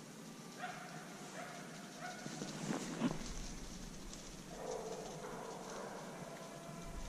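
Distant dogs barking faintly: three short barks about a second apart, then a longer drawn-out bark a little after four and a half seconds in. A few faint knocks or rustles come near the three-second mark.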